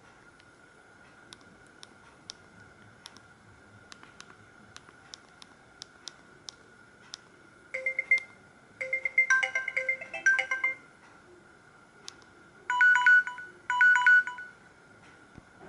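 Samsung SGH-E900 mobile phone playing short snippets of its built-in ringtones through its loudspeaker. Faint clicks for the first half, then a run of melodic notes about halfway in that stops after about three seconds, and two brief loud bursts of notes near the end.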